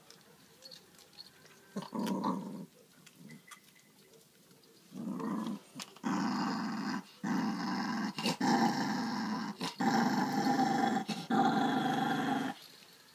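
Dog growling over a pig's trotter bone it is guarding: a short growl about two seconds in, another near five seconds, then a long, nearly unbroken growl with a few brief pauses until just before the end.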